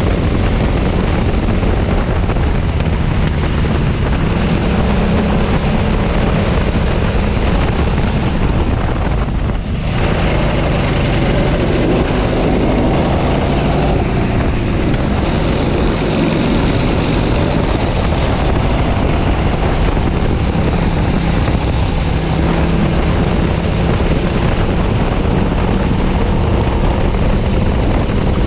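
Racing kart engine heard from onboard at speed, its pitch rising and falling with the throttle through the corners, with wind buffeting the microphone. The engine note drops briefly about ten seconds in.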